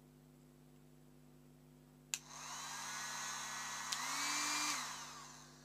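Heat gun switched on with a click, its fan motor blowing with a faint whine. A second click about two seconds later raises the motor's pitch, as at the higher speed setting, and it is switched off and spins down near the end. The gun is running normally again after its broken heating-element wire was rejoined.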